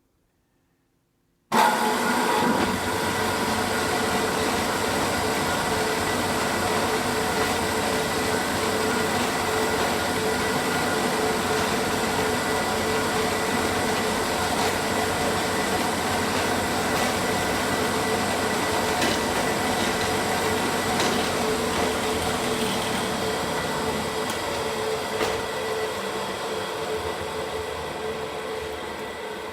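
Semi-automatic frame-saw sharpening machine (TChPA-6) running: a loud, steady mechanical noise with a few steady tones from its motor, gearbox and abrasive wheel. It starts abruptly about a second and a half in.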